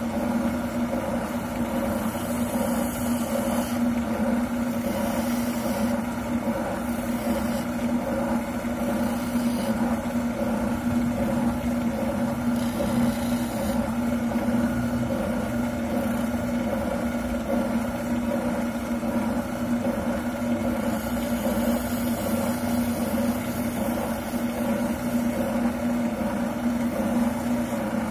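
Wilton oscillating sander motor running with a steady hum, as a shotgun buttplate is sanded down against it; a fainter sanding hiss comes and goes in stretches.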